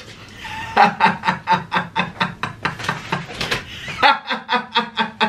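A person laughing hard in a long run of quick ha-ha pulses, about four a second, with a fresh, louder burst of laughter about four seconds in.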